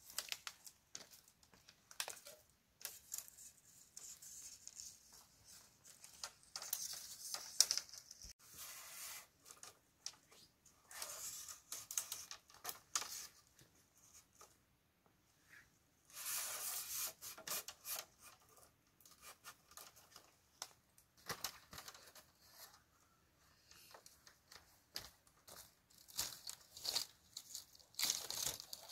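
Bamboo being worked by hand: irregular bursts of tearing and crackling, a few lasting a second or two, with sharp clicks between them.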